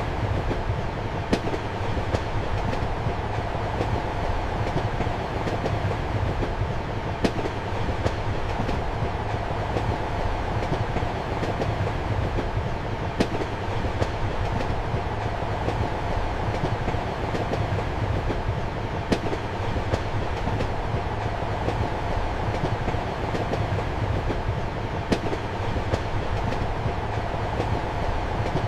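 Passenger train running steadily, heard from inside a compartment: a continuous rumble and hum of the carriage, with a sharp wheel click on the rails about every six seconds.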